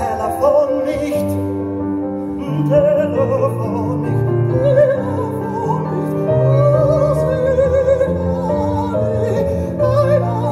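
A man singing a slow ballad with a wavering vibrato, accompanied by a grand piano.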